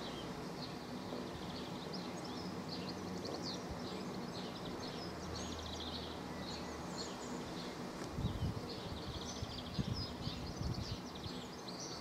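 Small birds chirping and twittering in the background, many short high notes, over a low steady hum. From about eight seconds in, irregular low rumbles come and go.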